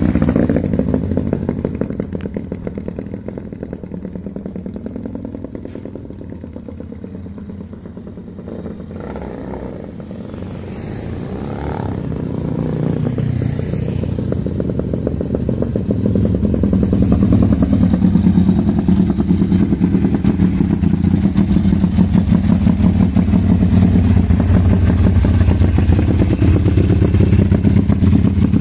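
Home-built 400 cc V-twin made from Honda Tiger engine parts, fed by a single carburettor, running on a test. It eases back from a rev to a lower speed over the first several seconds, then slowly picks up again and holds a steady, higher speed for about the last ten seconds.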